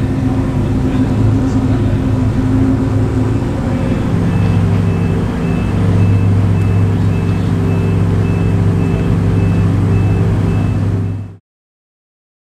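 Ferrari Monza SP2's V12 engine idling steadily, with a faint regular beeping in the background from about four seconds in; the sound cuts off suddenly near the end.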